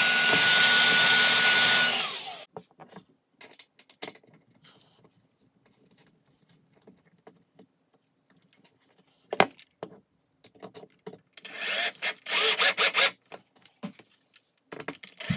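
Power drill with a Phillips driver bit running steadily, with a whine, for about two seconds as it drives a hinge screw into the wooden case, then stopping. Quiet handling clicks follow, and near the end the drill runs again in several short bursts.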